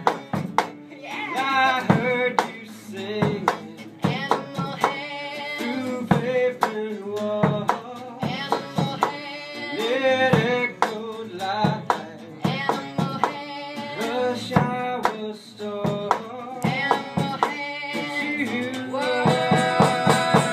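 Live band music: plucked strings and percussion keep a steady beat, and voices sing over them.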